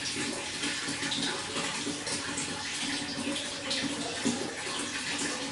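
Running water, flowing and splashing steadily.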